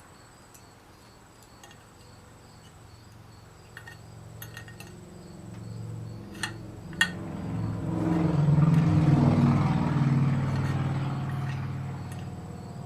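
A few light metal clinks as a small steel fitting is threaded in by hand and tools are handled, then a vehicle passing, its low rumble swelling to its loudest about nine seconds in and fading.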